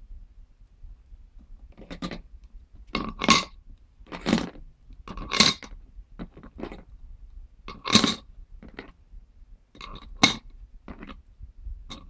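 Thin metal rings clinking against each other, the plastic tray and a ring-toss spindle as a Senegal parrot picks them up and drops them on: about a dozen sharp clinks with a short metallic ring, starting about two seconds in.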